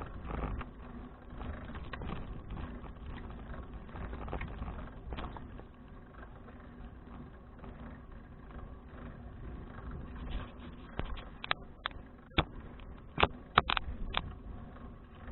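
2012 Fuji Touring bicycle being ridden, heard from its action camera: a steady low rumble of wind and tyres. In the last few seconds come a handful of sharp clicks and knocks, the loudest sounds here.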